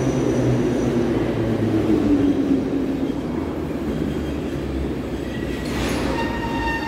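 Metro train running alongside the platform, a steady rumble with a slowly falling tone as it slows. A high squeal from the wheels and brakes sets in near the end.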